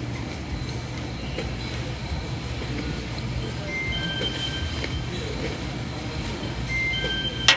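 Steady low rumble with faint background music and short high tones over it; a sharp click near the end.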